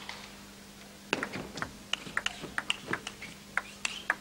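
Table tennis ball being struck back and forth in a rally: a quick, uneven series of sharp clicks of ball on rubber bats and table, about three a second, starting about a second in. A faint steady hum runs underneath.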